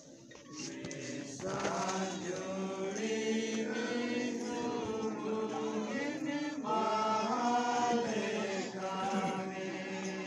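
A group of voices singing together, with long held notes that swell in about a second and a half in.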